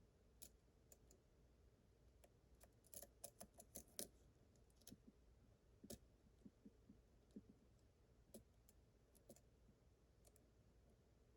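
Faint, sharp clicks of a lock pick and tension wrench working the pins of a Yale Superior 1-star pin-tumbler lock. There is a quick run of clicks about three to four seconds in, then scattered single clicks.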